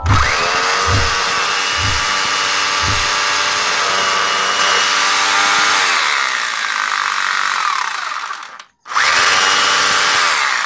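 Bosch GBH 200 hammer drill boring into a brick wall. Its motor whine spins up at the start, runs steadily and winds down about eight seconds in, then starts again briefly near the end. A dull thud comes about once a second during the first three seconds.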